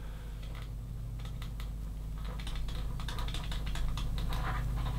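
A digital pen writing on a tablet: a run of light, irregular taps and scratches as words are handwritten, over a steady low hum.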